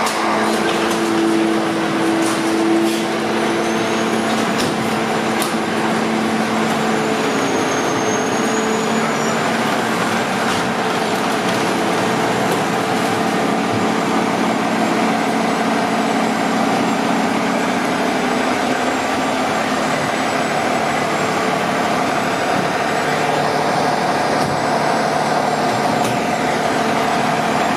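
Diesel engine of a KME fire pumper running steadily at idle inside an enclosed firehouse bay, a loud even noise with a low drone that is strongest in the first few seconds.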